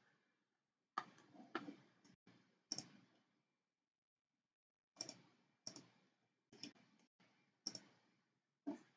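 Faint, irregular clicks from operating a computer's mouse and keyboard, about ten scattered across a few seconds with short gaps between.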